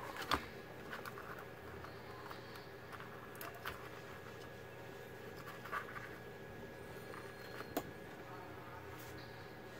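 Faint scattered clicks and scrapes of wire harnesses and plug-in connectors being handled and pushed into a TV mainboard, about seven small clicks in all, over a steady background hum.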